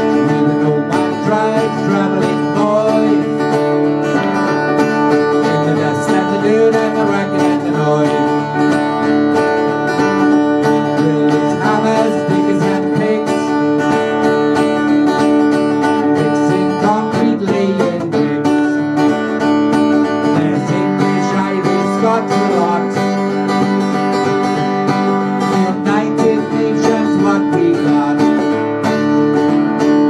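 Two acoustic guitars playing an instrumental passage together, with sustained chords under a moving picked melody line.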